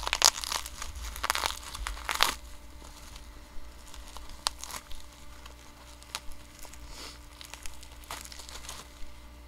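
Plastic wrapping on a trading card crinkling and tearing as it is unwrapped by hand, busiest in the first two seconds, then scattered softer rustles and clicks of handling.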